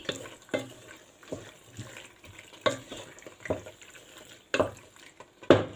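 Spatula stirring penne in thick tomato sauce in a steel pot: irregular scrapes and knocks against the pot, about six in all, over a faint sizzle of the hot sauce.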